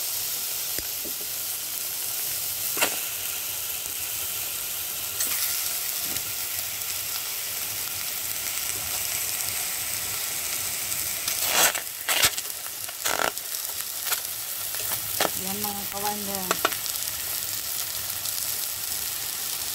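Chicken pieces sizzling in a hot stainless steel pot as they are first heated, a steady hiss. Metal tongs clink against the pot a few times, most of them in the middle.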